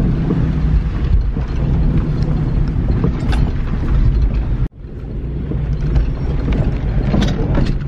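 Cabin noise inside a Honda CR-V driving over a rough dirt trail: a steady low engine and tyre rumble with interior rattles and knocks as it bumps along. The sound cuts out abruptly for an instant a little past halfway, then picks up again.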